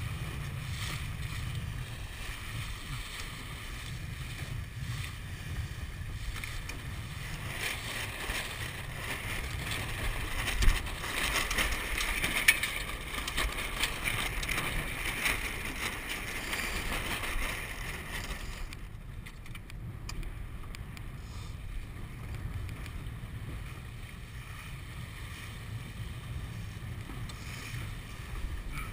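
Water rushing and splashing along the hull of a 470 racing dinghy under sail, with wind buffeting the microphone. The rush swells in the middle, with one sharp thump about ten seconds in, then eases off.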